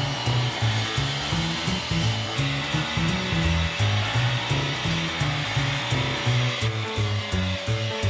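Background music with a stepping bass line and a steady beat, over the steady whirring rush of a Worx WX030 cordless compact vacuum's motor and suction, which changes at about two and a half seconds and again near seven seconds.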